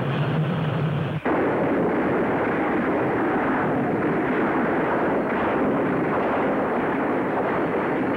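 Cartoon battle sound effects: a dense, continuous din of gunfire and explosions that cuts in abruptly about a second in and keeps up steadily.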